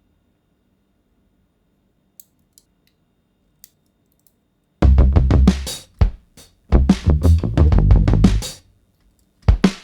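A few faint clicks in near silence, then loud drum-heavy background music starts about halfway through. The music comes in stop-start bursts of kick drum and snare.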